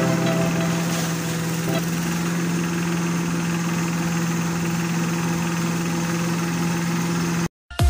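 Kubota single-cylinder diesel engine running steadily on a shredder, a constant hum that stops abruptly near the end.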